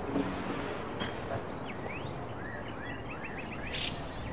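Small birds chirping in short rising and falling calls, with a quick run of several chirps near the middle, over a steady outdoor hiss.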